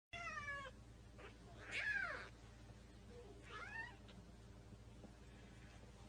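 A cat meowing three times. The second call is the loudest and longest, rising then falling in pitch.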